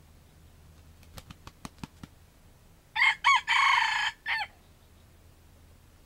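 Red junglefowl rooster crowing once: a short four-part crow that stops abruptly, preceded about a second earlier by a quick run of six sharp claps as the rooster beats its wings.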